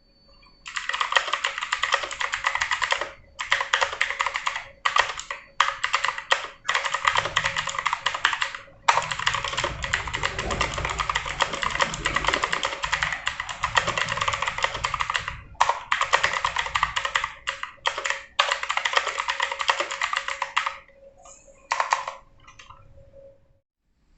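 Fast typing on a computer keyboard: rapid key clicks in runs of a few seconds, broken by short pauses, thinning out near the end.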